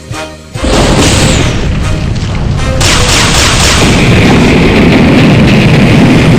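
Music broken by a sudden loud boom about half a second in, which runs on as a sustained explosion-like rumble, with a second surge about three seconds in: an anime-style explosion sound effect.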